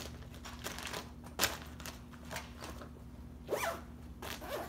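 Plastic bait packages and the backpack's clear plastic storage sleeves being handled: irregular rustling and crinkling with a few sharp crackles, the loudest about a second and a half in, and a couple of short squeaks near the end.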